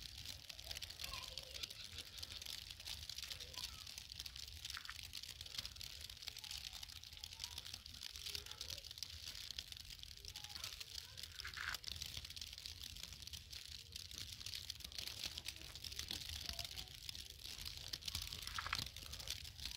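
Falling wet snow pattering steadily as a dense, fine crackle of tiny ticks, over a low steady rumble.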